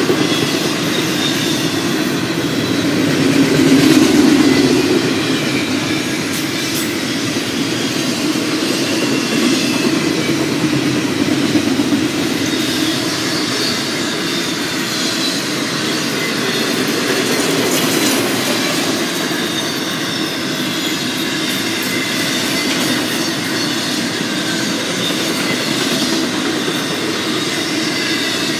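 Double-stack container train's cars rolling on the rails: a steady rumble of steel wheels with faint high-pitched wheel squeal over it.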